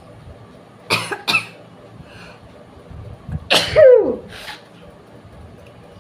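Sneezes brought on by tickling the nose with long grass: two quick sharp sneezes about a second in, then a loud sneeze with a voiced cry falling in pitch about three and a half seconds in, followed by a softer breathy sound.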